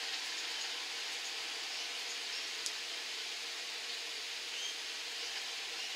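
Steady background hiss with a faint hum underneath, and a single small click about two and a half seconds in.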